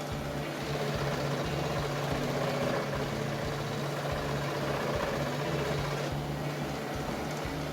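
Vacuum motor driving a home-made pail-can cyclone dust collector, running steadily: a constant hum with the rush of air being sucked through.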